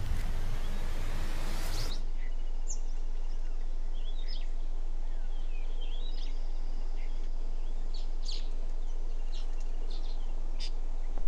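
Birds chirping in short scattered calls over a steady low hum. For the first two seconds a loud hiss covers everything, then cuts off suddenly.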